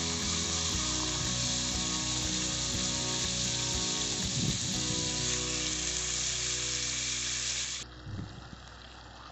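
Beef steaks sizzling as they fry in hot oil in a nonstick pan on a portable gas stove: a steady, loud sizzle. Near the end it drops suddenly to a quieter sizzle.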